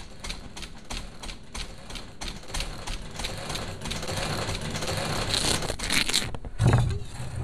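Rapid, irregular clicks and taps, about three a second, giving way to a hissing whoosh that rises and grows louder for about three seconds and then cuts off suddenly. A low, heavy thud follows near the end.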